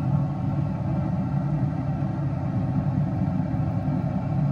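Steady low hum of the Traeger Ironwood 650 pellet grill running, its fan going.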